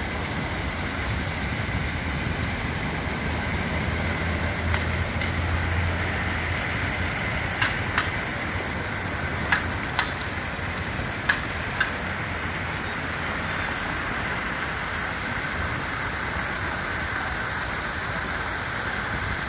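Large fountain's jets splashing into its stone basin: a steady rush of falling water. A low traffic rumble runs underneath in the first six seconds, and a handful of sharp clicks come between about eight and twelve seconds in.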